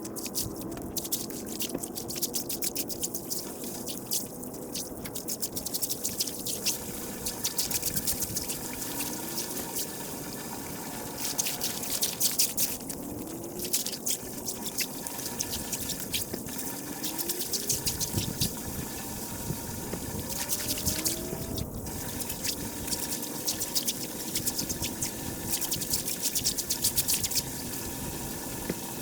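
Water running and trickling into a drain, with a constant patter of small drips and splashes.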